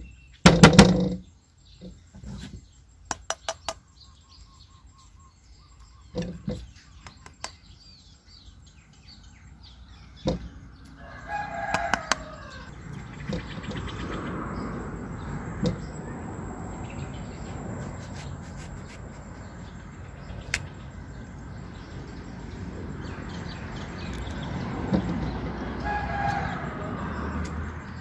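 A rooster crowing twice, about twelve seconds in and again near the end, over a steady hiss. A loud thump right at the start and scattered clicks and knocks from handling the persimmons and the knife on the plate.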